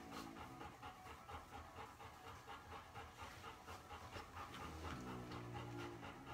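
A puppy panting quickly and rhythmically, with a brief low droning tone about five seconds in.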